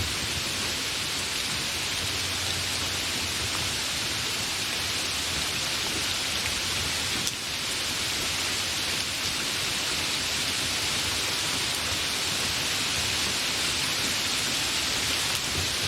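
Continuous steady rain, an even hiss of falling drops, with a brief dip in loudness about seven seconds in.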